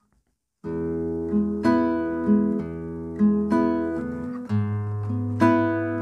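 Nylon-string classical guitar played fingerstyle, picking a shuffle arpeggio over open chords, with a bass note ringing under the plucked treble notes; it starts under a second in and the bass changes to a new chord about four and a half seconds in.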